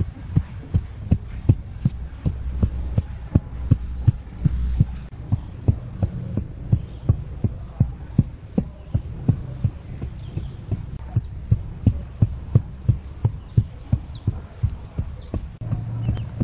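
Round-headed hand tamper thumping down on a damp sand bed, about two to three dull thuds a second in a steady rhythm, compacting the base. A low steady hum sits underneath.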